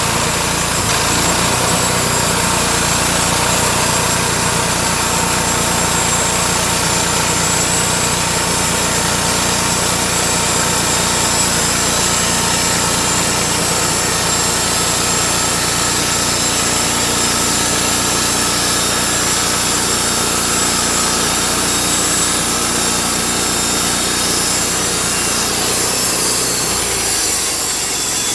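Band sawmill running and sawing through a log: a steady, loud sawing noise with high steady tones over it, easing slightly near the end.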